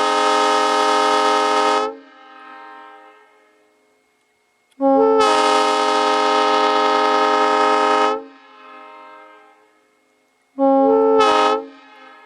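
Nathan Airchime M3R1 three-chime locomotive air horn, a 1952 unit still factory seal-wired, blown from a compressed-air tank and sounding its chord in three blasts: one already sounding that cuts off about two seconds in, a long one of about three seconds, and a short one of about a second near the end. Each blast is followed by a brief echo.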